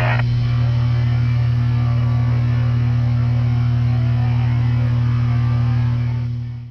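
A single low drone note held steady as the last sound of a piece of music, after the other parts cut off right at the start; it fades out near the end.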